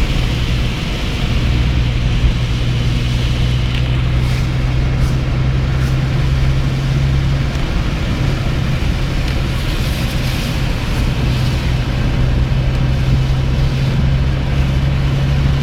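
Car driving on a wet road: steady low engine hum with tyre and road noise.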